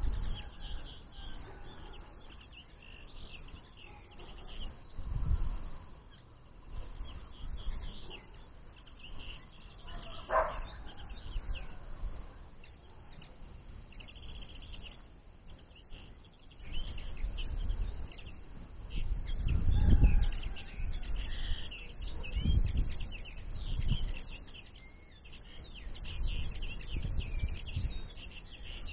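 Small songbirds twittering and chirping throughout, with one louder rising call about ten seconds in. Low rumbles of wind on the microphone come and go several times.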